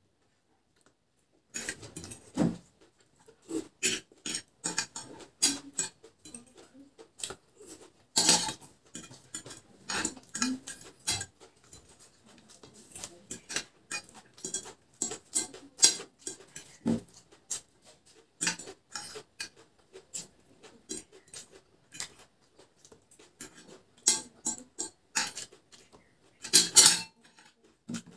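Close-up eating sounds: chewing Maggi instant noodles, with a fork tapping and scraping against the plate as noodles are gathered up. There are many short irregular clicks, starting about a second and a half in.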